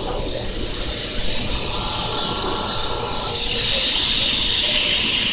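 Kintetsu limited-express train running past the platform as it pulls out: a steady hiss of wheels and running gear, a little louder from about three and a half seconds in.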